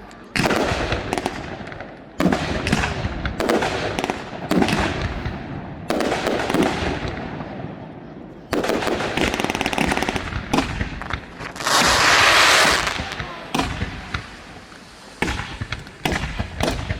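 Aerial fireworks display: a rapid, irregular string of shell bursts and bangs, each dying away in a crackling echo, with a longer, louder rush of crackle about twelve seconds in.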